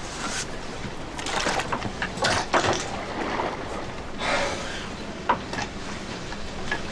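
Film sound from a fishing boat: a steady hiss of sea and wind with scattered knocks and clatters, and a short rush of water about four seconds in.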